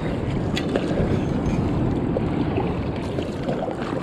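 Water sloshing and splashing against an inflatable kayak, with wind buffeting the microphone and a few sharp clicks, the sharpest about half a second in.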